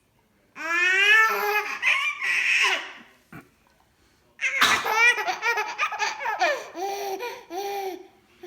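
A baby belly-laughing in two bouts of rapid, pulsing laughs. The first starts about half a second in and lasts some two seconds. After a short pause the second opens with a sudden noisy burst about four and a half seconds in and runs on until near the end.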